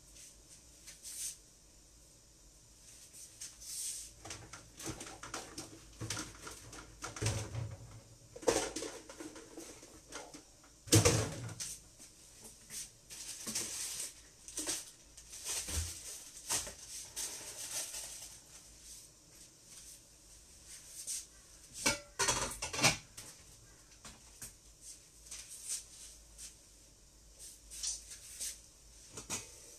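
Scattered clinks and knocks of kitchenware, dishes, a metal pot lid and utensils being handled on a counter, with the loudest knocks about a third of the way in and again a little past two thirds.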